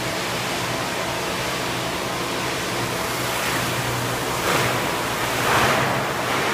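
Large injection molding machine running in a factory: a steady mechanical hum under a broad noise, with a hiss that swells twice in the second half.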